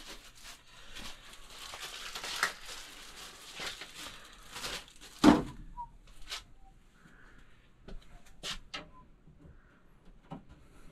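Plastic bag crinkling and tearing as it is handled and opened, then a sharp knock about five seconds in and a few lighter clicks of small parts being handled.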